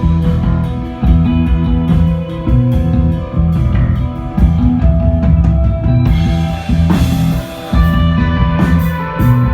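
Instrumental desert rock band playing live: electric guitar and bass over a drum kit, with cymbal crashes washing in about two-thirds of the way through and again near the end.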